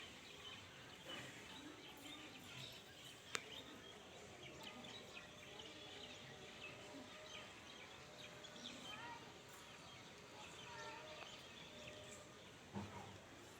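Faint chirping of many birds gathering to roost in the evening, over a steady hiss of background noise. A sharp click sounds about three seconds in and a low thump near the end.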